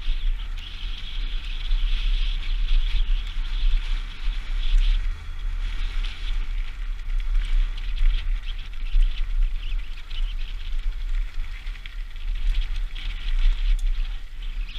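Mountain bike ridden fast down a dirt forest trail: wind rushing over the helmet camera as a steady low rumble, with tyres rolling over the dirt and a continual patter of small rattles and knocks from the bike.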